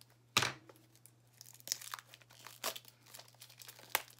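Packaging of a pack of vintage craft tags being torn open and crinkled by hand: a sharp rip about half a second in, then irregular crackling and rustling, and a sharp snap near the end.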